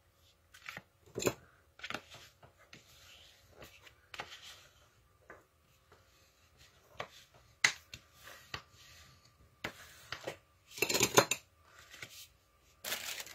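Red cardstock being handled and folded on a grid mat: irregular paper taps, slides and rustles, with a bone folder rubbed along the fold to crease it. The loudest handling noises come about a second in, near eight seconds and around eleven seconds.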